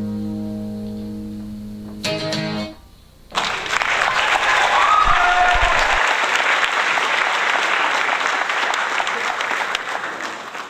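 Acoustic guitar's final chord ringing out and fading, with one last strum about two seconds in. About a second later applause starts and continues steadily, louder than the guitar, until it cuts off abruptly.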